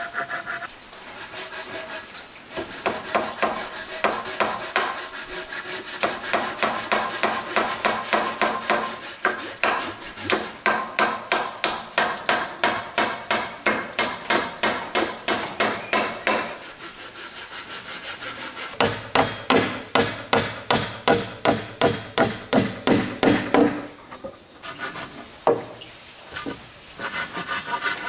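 Hand tool working timber in steady repeated strokes, about two to three a second, easing off briefly near the end before starting again.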